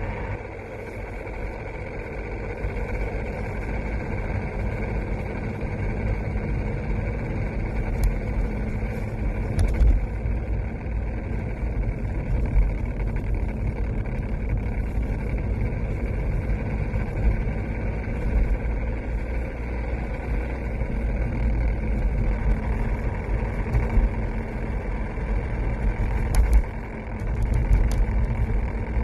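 Mercedes-Benz W203 C-Class underway, heard from inside: a steady low rumble of engine and drivetrain with a few short clicks. The noise from around the gearbox selector was traced to the parking brake cable, its clips broken, catching on the prop shaft.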